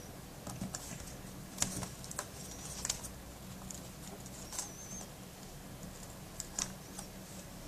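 Scattered light plastic clicks and taps from a laptop keyboard being handled and pressed as it is fitted back into a Dell Studio laptop. A faint low hum runs underneath.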